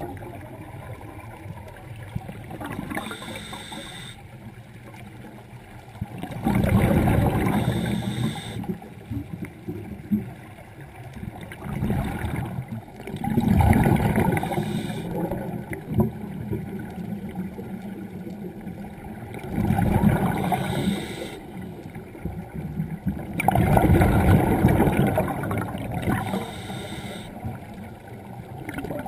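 Scuba diver breathing through a regulator underwater: exhaled bubbles burst out in a loud gurgling rumble about every six seconds, with quieter stretches between breaths.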